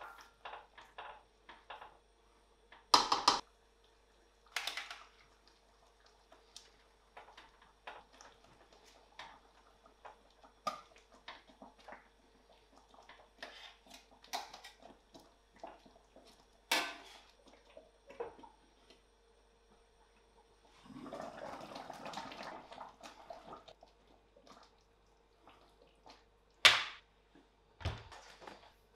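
Wooden spoon stirring and scraping a thick sauce in a stainless-steel frying pan, and metal tongs setting pork steaks into it, with scattered clicks and several sharp knocks of utensils against the pan. A few seconds of steady hissing come about two-thirds of the way through, over a faint steady hum.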